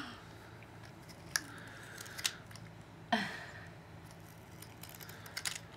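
Handling a small toy car: a few sharp separate clicks and snips of plastic or metal knocking and snapping, one at a time with quiet between.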